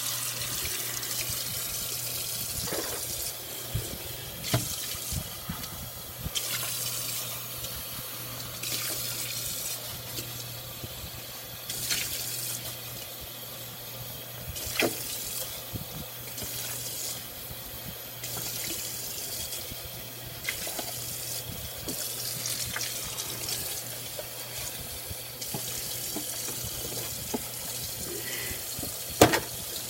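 A kitchen faucet running steadily into a sink while dishes are washed, with occasional clinks and knocks of dishes against the sink and a sharp knock near the end.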